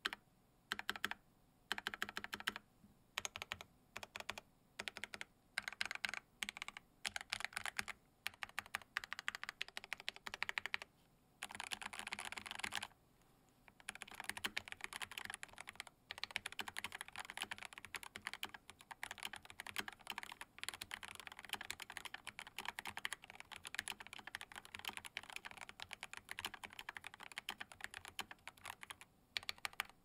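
Glorious GMMK Pro 75% gasket-mount keyboard with Everglide Aqua King linear switches on a polycarbonate plate, being typed on. The keystrokes come in short bursts with pauses for the first ten seconds or so, then turn into continuous fast typing from about halfway.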